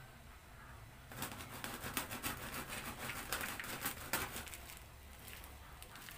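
Dry duck feed of rice bran, rice and concentrate being stirred and scraped by hand in a plastic basin: a dense gritty rustle of many small scratches, starting about a second in and stopping about three seconds later.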